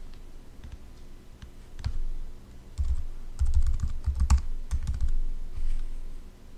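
Typing on a computer keyboard: a few single key presses, then a quick run of keystrokes in the middle that trails off near the end.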